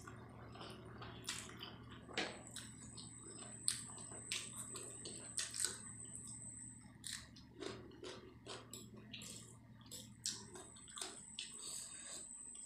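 Wet, faint eating sounds of Maggi noodles being slurped and chewed, made up of irregular soft smacks and clicks of the lips and mouth. A faint steady high whine comes in about two seconds in, drops out past the middle, and returns near the end.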